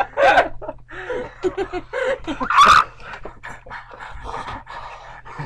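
Several people laughing and making silly wordless vocal noises, with a louder squeal about two and a half seconds in.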